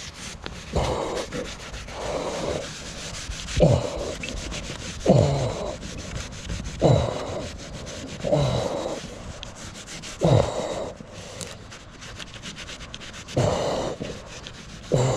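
Heavy breathing through a respirator mask, in and out about every one and a half seconds, with a short pause near the end; the laboured breathing of a wearer with COPD working in the heat.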